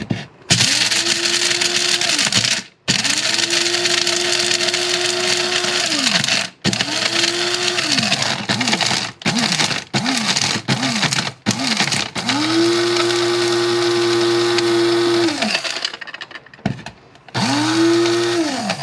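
Electric blade coffee grinder grinding dog food in pulses: several runs of a few seconds, a quick string of short taps in the middle, then a longer run. On each run the motor whine climbs fast to a steady pitch and sinks when released.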